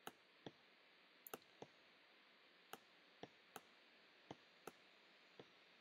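Computer mouse clicking, about ten single sharp clicks at uneven intervals, one at a pair about 1.3 seconds in. Each click is an eraser dab on a layer mask in Photoshop.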